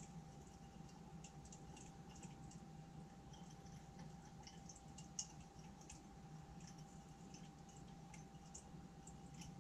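Faint steady hum and thin whine of a magnetic stirrer running, with faint irregular light clicks throughout and one sharper click about five seconds in.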